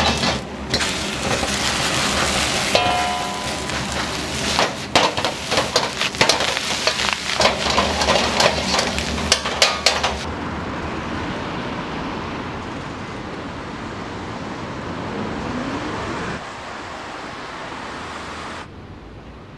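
Ramen-shop kitchen clatter: utensils, bowls and pans knocking in quick, irregular clicks over a dense background hiss. About ten seconds in it cuts to a steady, even outdoor noise with no distinct events.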